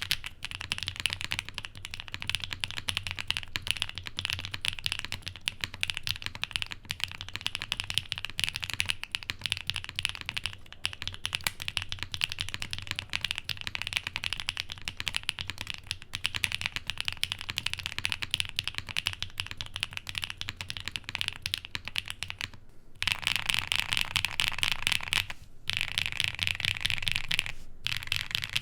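Fast, continuous typing on a QK65 mechanical keyboard with lubed Coley linear switches on an FR4 plate, a dense stream of key clacks. Near the end the typing breaks off briefly a few times and comes back louder and brighter.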